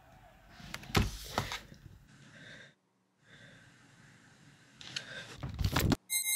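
A girl crying quietly with sniffs and gasping breaths, the loudest about a second in and again near the end. A short electronic chime sounds right at the very end.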